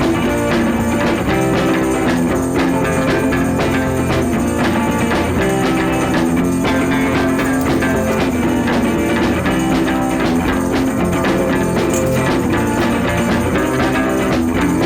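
Background music: a rock-style track with guitar and drums keeping a steady beat.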